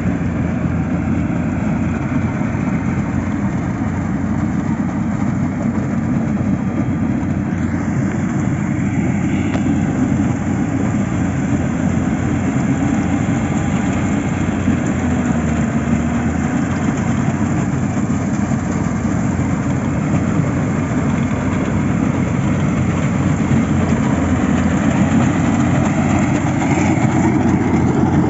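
An engine running steadily with a low, even rumble, getting slightly louder near the end.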